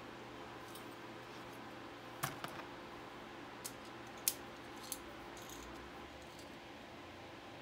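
A few sharp clicks and taps of small hardware being handled, the loudest about halfway through, over a steady low hum.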